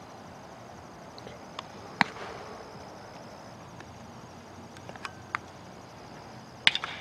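Steady outdoor field ambience with a thin high drone of insects, broken by a few faint knocks. Near the end comes a sharp crack of a bat hitting a pitched baseball.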